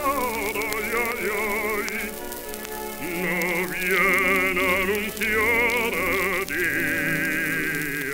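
A baritone sings a Spanish serenade with wide vibrato over an orchestra accompaniment, in phrases with short breaths between. The sound comes from an electrically recorded 78 rpm disc, with its narrow, thin tone, a background hiss and faint surface clicks.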